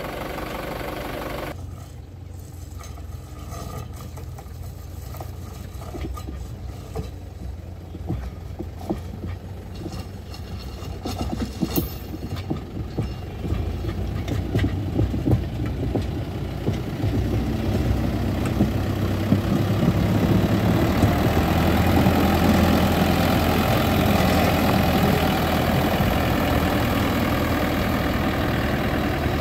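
Mahindra Yuvo tractor's diesel engine running steadily while it pulls a loaded hopper wagon along railway track on steel rail wheels, getting louder through the second half as it comes closer. Scattered clicks and knocks in the first half.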